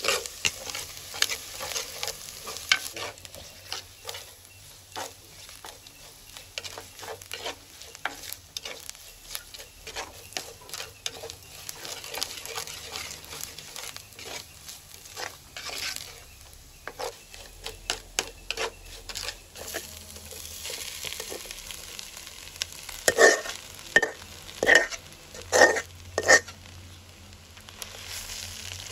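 Onions, dried chillies and curry leaves sizzling in hot oil in a clay pot while a wooden spoon stirs and scrapes through them. Late on, about five sharp knocks with a short ring sound over the sizzle.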